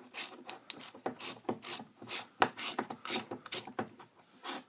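Handheld flashlight being worked in the hands: an irregular run of about a dozen sharp mechanical clicks with scraping between them, the loudest a little past the middle.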